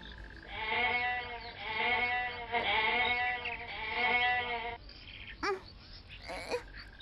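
Goat bleating four times in a row, each bleat about a second long with a wavering, arching pitch. A few short sweeping chirps follow near the end.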